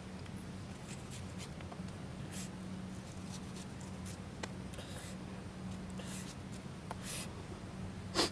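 Small knife slicing through crisp star fruit: short, crisp cutting strokes about a second apart, the loudest just before the end, over a steady low hum.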